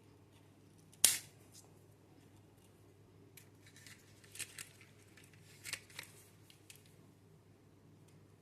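A sharp snap about a second in, then a run of lighter clicks and taps from small hard objects being handled.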